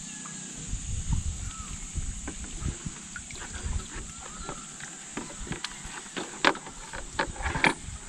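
Knocks and rustling of a long-handled scoop net worked through floating water plants and lifted back onto a bamboo raft, with a cluster of sharp knocks in the second half, the loudest about two-thirds of the way in. A steady high hiss runs underneath.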